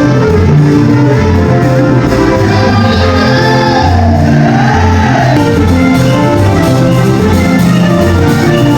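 Loud upbeat music with a steady bass beat. About three to five seconds in, a wavering, rising and falling cry rides over it, with some singing or shouting.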